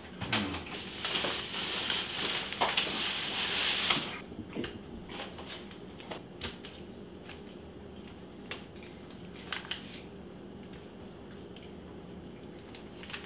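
Paper and plastic wrapping crinkling loudly for about four seconds, stopping abruptly. After that come soft, scattered rustles and taps as raw fish fillets are peeled apart and laid out on paper.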